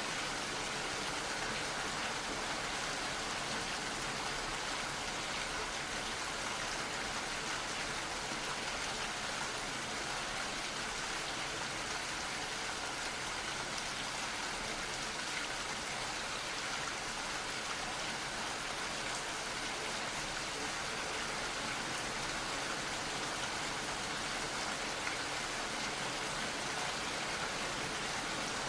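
Gentle rain falling steadily, an even hiss with fine patter of drops.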